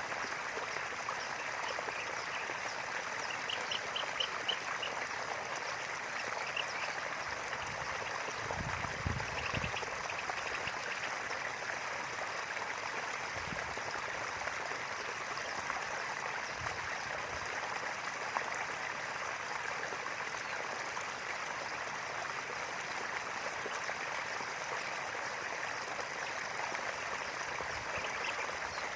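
A small river flowing steadily, an unbroken rush of running water. A short run of bird chirps comes a few seconds in.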